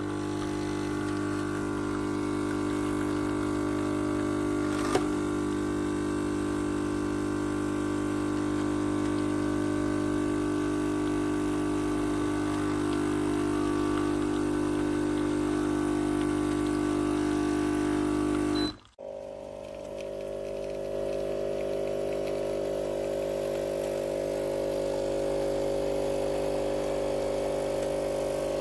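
CASABREWS espresso machine's pump running with a steady hum, with a small click about five seconds in. About two-thirds of the way through the sound breaks off abruptly, then a steady hum resumes at a higher pitch.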